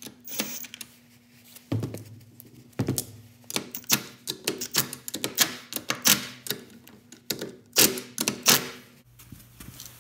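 Milwaukee stubby cordless impact wrench snugging up wheel lug nuts: a run of sharp, irregular clicks and knocks from the tool and socket working on the nuts.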